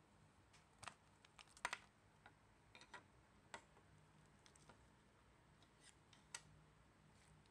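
Faint clicks and taps of a hard plastic maneki-neko capsule toy being pried open and its parts set down on a table: a quick run of clicks about a second in, then a few single taps.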